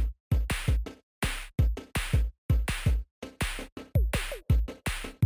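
Background electronic music: a choppy drum-machine beat with a deep kick and sharp hits that cut off abruptly, about two to three a second.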